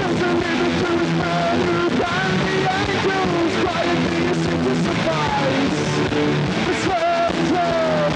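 Post-punk rock band playing live, with held chords and wavering, gliding melody lines over a steady band sound. The recording is muffled and poor-quality, taken from an old tape.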